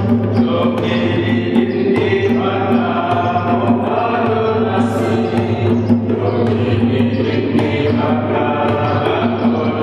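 Choir singing a liturgical chant, voices held on long sustained notes over a steady low drone.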